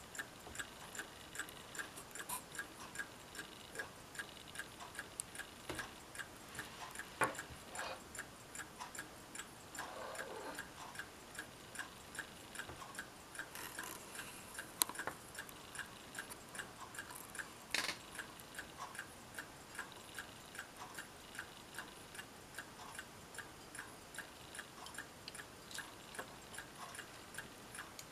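Mechanical pocket watches ticking, a rapid, even ticking, with a few louder single clicks and a brief rustle in between.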